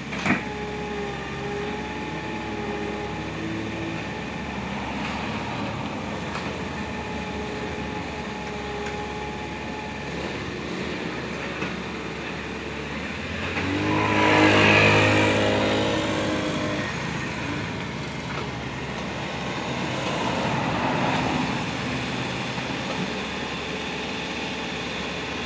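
Mini excavator's diesel engine running steadily under hydraulic load as it digs, with a sharp clank just after the start. About halfway through, a louder vehicle sound swells and fades over a few seconds, and a weaker one follows later.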